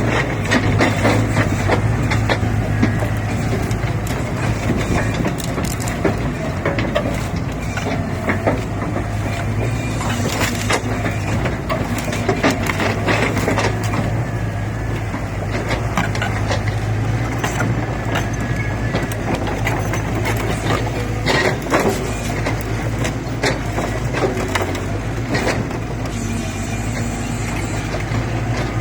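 Excavator engine running steadily under a rotating log grapple, with frequent irregular knocks and cracks of logs being gripped and striking one another.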